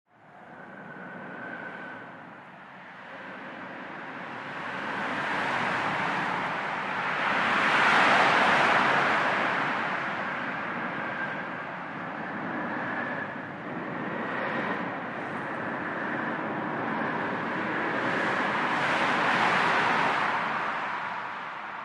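Highway traffic heard from under an underpass: cars and trucks passing overhead and on the street below, with a steady rush of tyre and engine noise. The noise fades in at the start and swells twice as vehicles go by, loudest about a third of the way in and again near the end.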